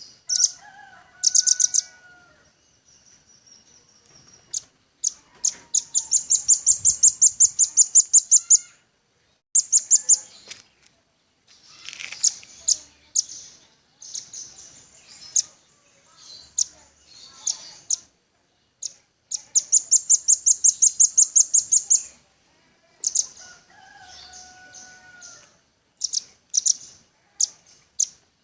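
Velvet-fronted nuthatch calling: high, sharp chip notes in fast trills of about eight notes a second, broken by short pauses. Twice the trill runs on evenly for two to three seconds.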